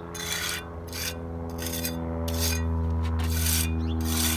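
Pointed trowel scraping back and forth over a plastic stencil laid on fresh cement, a run of rasping strokes about one a second as the pattern and pigment are pressed in. A steady low hum runs underneath and grows louder about halfway through.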